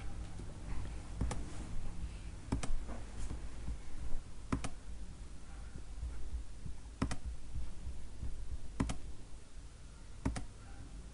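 Computer mouse clicking: about half a dozen sharp, separate clicks a second or two apart, a couple of them in quick pairs, over a low steady hum.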